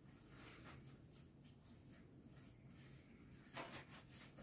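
Faint rustling and tearing of tissue paper as a dog noses through and pulls at the shredded pieces, in a few short scrapes, the loudest near the end.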